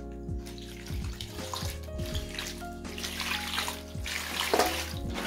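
Water running and splashing, loudest in the second half, under background music with steady tones and a low beat.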